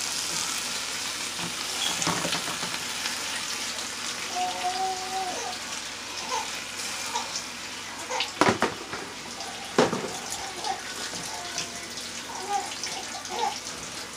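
Wet chopped cabbage sizzling and crackling in hot melted butter in a pot, a steady hiss. Two sharp knocks about eight and a half and ten seconds in.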